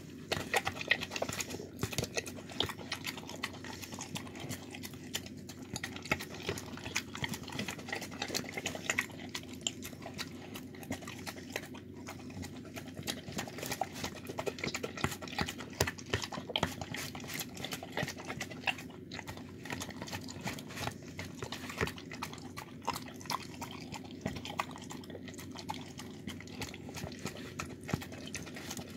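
A dog licking a plastic food tub clean: a dense, irregular run of wet tongue smacks and clicks against the plastic, over a steady low hum.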